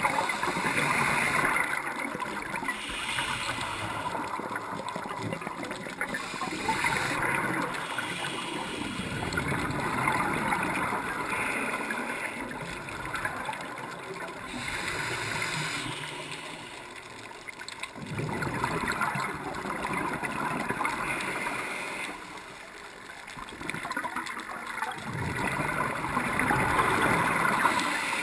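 Scuba diver breathing through a regulator underwater, heard through the camera's waterproof housing: gurgling bubbles of exhaled air that come and go in waves every few seconds.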